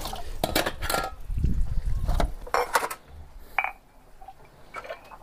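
Washing-up clatter: a pot and mugs are knocked and set against other dishes in a quick run of knocks for the first three seconds. About three and a half seconds in there is a single short ringing clink.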